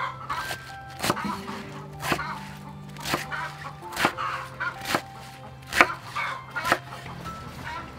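Cleaver chopping napa cabbage on a thick wooden chopping block, a sharp knock about once a second.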